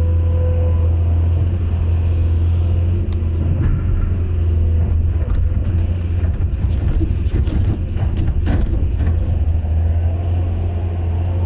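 Excavator's diesel engine running steadily, with a spell of clanks and knocks from about three to nine seconds in.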